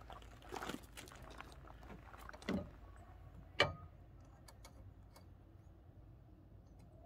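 Handling knocks and clicks from a camper cradle's steel bracket post and its locking pin being fitted: a soft knock, a louder dull knock about two and a half seconds in, and a sharp click about a second after that, over a faint steady low hum.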